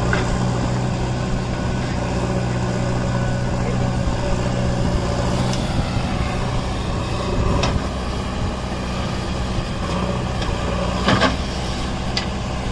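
A heavy vehicle engine running steadily with a low, even hum, like a truck or excavator at work. A few short sharp clicks, the loudest about eleven seconds in.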